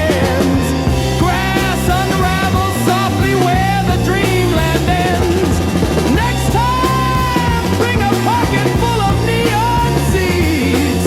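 AI-generated rock song playing, with drums, bass and a wavering lead melody line.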